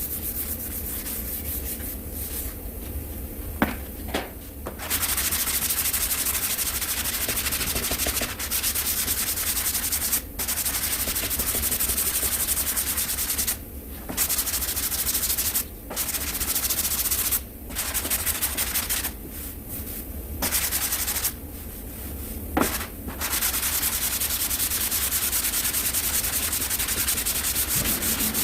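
Abrasive paper sanding cured body filler on a car panel: long stretches of steady scratchy sanding broken by short pauses, with a couple of sharp knocks.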